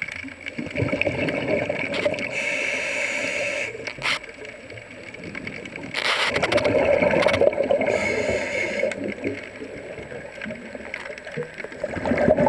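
Underwater gurgling and bubbling picked up by a submerged camera, swelling louder for a few seconds at a time, about every six seconds, with a few sharp clicks.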